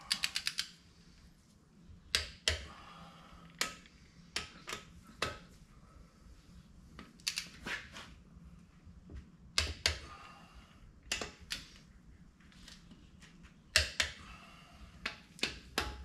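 Hand ratchet socket wrench working the bolts of a TH350 transmission's front pump: a quick run of about six ratchet clicks at the start, then short runs and single sharp clicks on and off.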